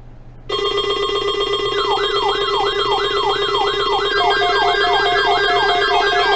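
Electronic siren-style alarm tones. A steady chord of tones switches on suddenly about half a second in. From about two seconds, quick up-and-down pitch sweeps repeat over it at about two and a half a second, and a second overlapping set of sweeps joins near the four-second mark.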